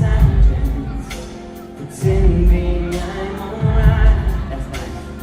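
Live pop band playing a song with singing: a heavy low beat that surges every couple of seconds, cymbals, and sustained pitched instruments.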